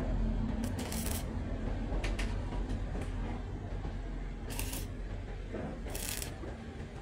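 Four short, high-pitched metallic clinks over a steady low hum, typical of metal pieces being handled during roofing work.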